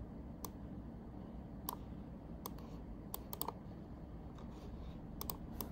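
About ten light, irregularly spaced clicks of someone working at a laptop computer, over a low steady background hum.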